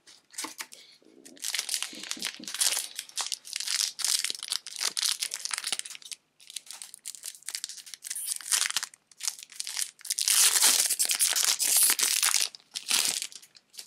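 Disney Lorcana booster pack's foil wrapper crinkling and tearing as the pack is opened. It comes in two long stretches, about five seconds and then three seconds, with lighter crackling between.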